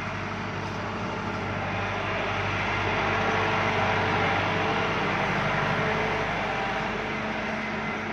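Massey Ferguson 385 tractor's four-cylinder diesel engine running steadily under load while pulling a laser land leveler. It grows louder toward the middle as the tractor turns close by, then eases off.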